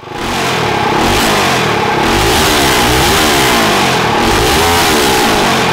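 Predator 212cc Ghost single-cylinder four-stroke engine, built to stage 5 for methanol, running loud through its open aftermarket exhaust. It is blipped so the revs drop and climb again a few times.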